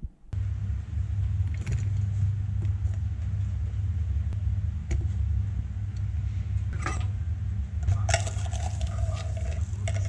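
Steady low rumble of kitchen background noise, with a few scattered metallic clinks and scrapes as a knife pushes chopped green onion into a stainless steel bowl.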